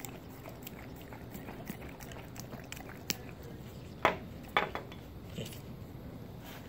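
Plastic toy spoon knocking and scraping in a small glass baby-food jar: a few sharp clinks about four seconds in. Before that come faint wet ticks of a dog licking food off the spoon.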